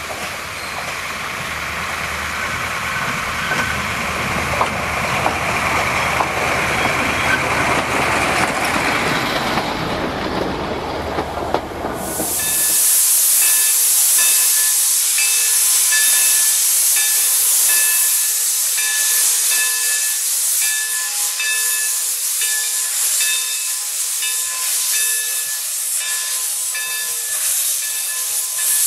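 Shay steam locomotive venting steam: a loud hiss, with faint tones flickering on and off in it. Before it, for about twelve seconds, a broad rumbling running noise that cuts off suddenly.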